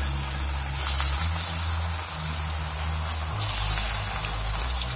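A masala vada (chana dal fritter) deep-frying in hot oil in a steel kadai: a steady, dense sizzle full of fine crackles, just after the patted vada went into the oil.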